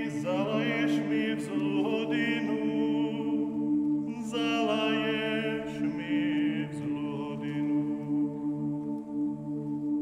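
Men's choir singing a Ukrainian folk song a cappella: the low voices hold a steady chord while higher voices move over it in short phrases, the last of which ends about three quarters of the way through, leaving the held chord.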